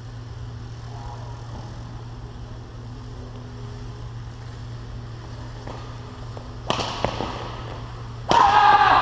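Badminton rally over a steady low hum: a sharp racket hit on the shuttlecock about two-thirds through, then a harder overhead smash near the end, followed at once by a loud burst of shouting.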